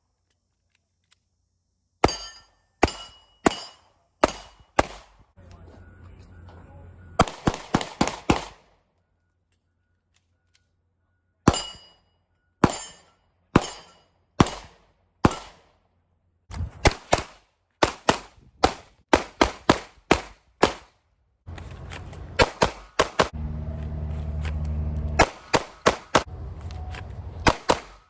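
Handgun shots fired in quick strings of several rounds, with short silent pauses between strings and the longest, fastest strings in the second half.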